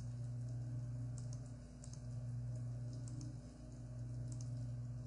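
Faint light clicks at a computer, often in quick pairs, every second or so, over a steady low hum.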